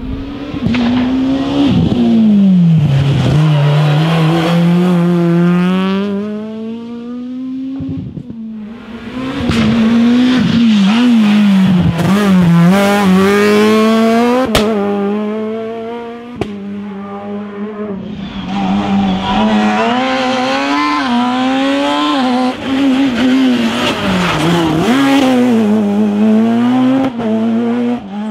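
Rally cars at full throttle on a special stage, engines revving up and dropping sharply at gear changes, with tyres squealing. There are three separate runs, each fading down before the next comes in, and a couple of sharp cracks partway through.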